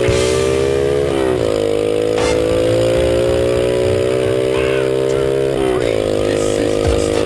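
Honda Z50 Monkey's small four-stroke single-cylinder engine pulling under acceleration. Its pitch climbs steadily and drops sharply twice, about a second in and again near six seconds, as it shifts up a gear.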